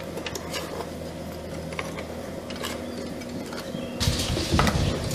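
Electric blower fan on a live-steam model locomotive humming steadily to draw the freshly lit charcoal fire, with small metallic clinks at the firebox. About four seconds in the hum stops and a louder, rougher noise takes over.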